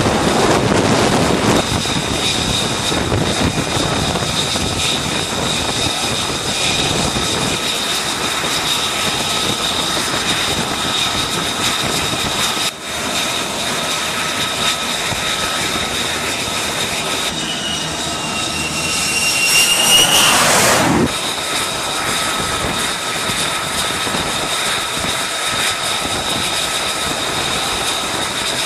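Jet engines running on an aircraft carrier's flight deck: the rush of jet noise with a steady high turbine whine, heavier in the first second or two. About eighteen seconds in, a whine rises for a few seconds and then cuts off suddenly.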